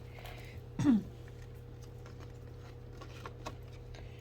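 Faint, scattered light clicks and taps, typical of tarot cards being handled, over a steady low hum. A woman gives a short murmured sound about a second in.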